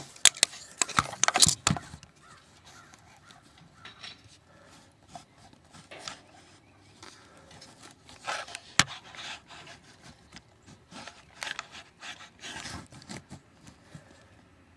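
Camera handling noise: rubbing and scraping against the microphone, with a cluster of loud knocks in the first two seconds and one sharp click about nine seconds in.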